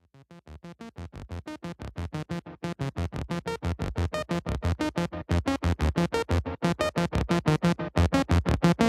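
Electronic music: a synthesizer chord chopped into rapid, even pulses, about six a second, fading in from silence and growing louder.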